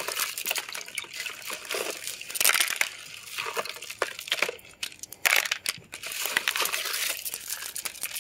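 Freshly tumbled, polished stones clicking and clattering against each other in a plastic colander, with water splashing and sloshing over them as they are rinsed. The clicks come irregularly throughout, some sharper and louder than others.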